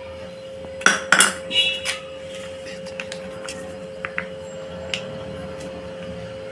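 Kitchen utensils clinking against dishes: a few sharp clinks about a second in, one of them ringing briefly, then scattered light ticks, over a steady hum.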